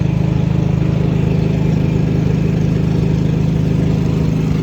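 Large engine idling steadily close by, a low, even drone with a fast regular pulse.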